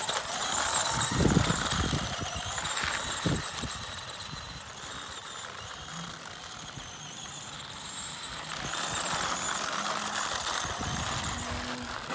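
A 1/18-scale RC monster truck's 380 brushed electric motor whining as it drives over gravel and asphalt, with a thump about a second in.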